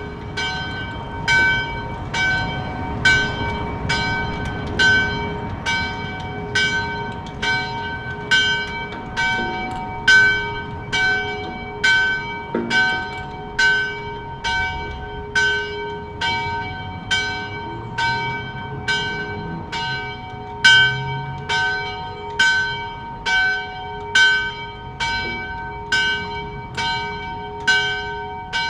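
Church bell ringing for noon at a steady pace, about one stroke a second, each stroke ringing on into the next.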